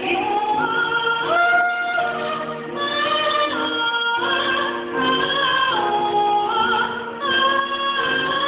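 A female soprano singing long held notes with vibrato over instrumental accompaniment, in a stage-musical song.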